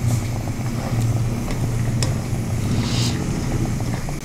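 Peanuts deep-frying in hot oil in a kadhai, the oil sizzling and bubbling as a wire spider skimmer stirs them, with a few light clicks of the skimmer against the pan. A steady low rumble runs underneath.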